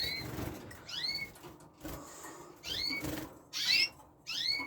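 Caged canaries giving short chirping call notes, each a quick upward sweep, about one a second.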